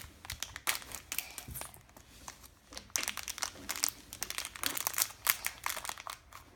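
Plastic toy packaging crinkling as it is handled, in irregular clusters of crackles that grow denser about halfway through.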